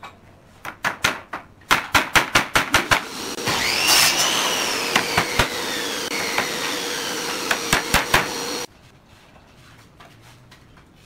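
A hammer knocks on the pallet wood a dozen or so times in quick succession. Then a motor starts with a fast-rising whine and runs for about five seconds, its pitch slowly sinking as if under building load, with a few more knocks over it, and stops abruptly. This fits an air compressor filling its tank for the nail gun and shutting off.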